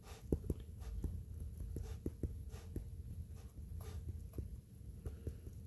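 Stylus tapping and sliding on a tablet's glass screen during handwriting: a quick, irregular run of faint clicks over a low hum.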